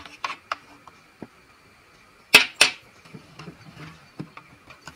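Light clicks and taps of small plastic toy groceries being handled in a toy fridge. A sharper double knock comes about two and a half seconds in, as a miniature tin is taken out and set down on the table.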